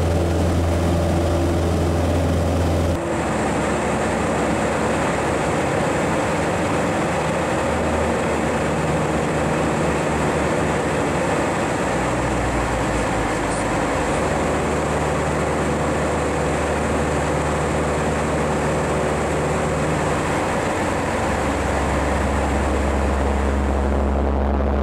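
Robin DR500 light aircraft in flight: steady engine drone mixed with rushing airflow, heard from on board. The sound changes abruptly about three seconds in.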